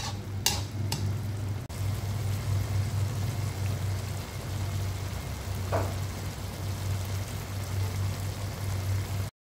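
Soy-and-vinegar adobo sauce with chicken and water spinach simmering and sizzling in a wok, over a steady low hum. A couple of sharp clinks in the first second, and the sound cuts off abruptly near the end.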